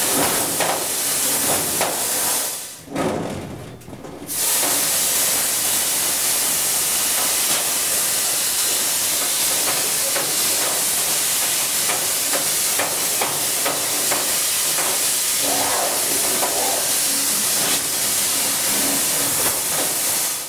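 Compressed air hissing steadily from a reverse skipper ball, a duct-cleaning agitation tool whipping about inside a heating duct. The hiss cuts out briefly about three seconds in, then runs on.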